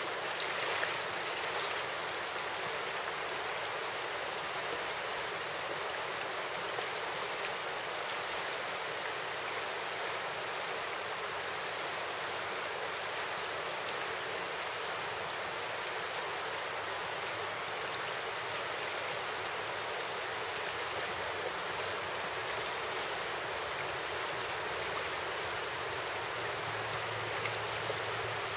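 River water flowing steadily, a constant even rush of current.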